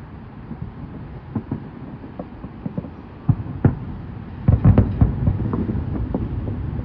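Aerial fireworks bursting: scattered small pops, then two louder bangs a little past three seconds in, and a dense run of the loudest bangs about four and a half seconds in, over a steady low rumble.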